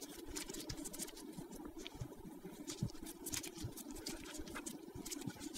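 Faint, irregular small clicks and scratches of a hex key turning in a bolt head, threading the lever blade's pivot bolt into a hydraulic disc brake lever.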